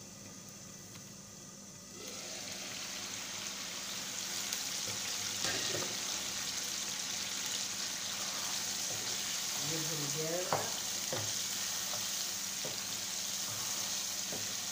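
Chicken in a thick tomato masala sizzling in a kadai while it is stirred with a wooden spoon, with a few sharp knocks of the spoon against the pan. The sizzle comes in suddenly about two seconds in.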